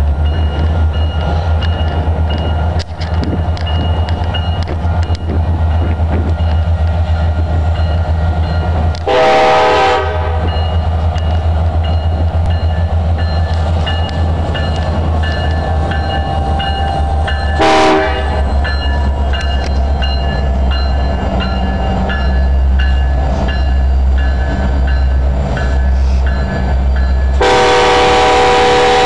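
Union Pacific diesel locomotives approaching and passing at the head of a container train, with a steady low rumble. The multi-note air horn sounds a blast of about a second roughly a third of the way in, a short toot past the middle, and a long blast starting near the end as the locomotives go by.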